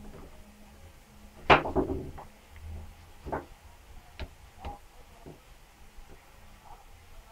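Clicks and knocks of a screwdriver and the plastic hot glue gun housing being handled as its screws are taken out, with a louder clatter about one and a half seconds in.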